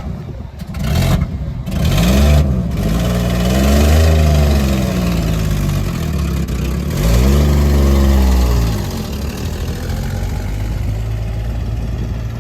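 A vehicle engine revved up and back down three times, then settling to a steady idle for the last few seconds.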